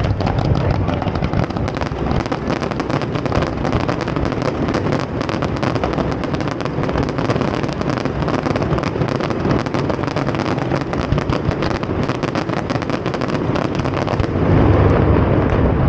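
Aerial fireworks display: a dense, rapid crackle of many small bursts over a low rumble. It swells louder and deeper near the end.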